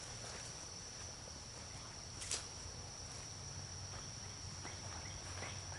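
Faint woodland ambience: a steady high-pitched insect trill, one sharp click about two seconds in, and short rising bird chirps repeating near the end.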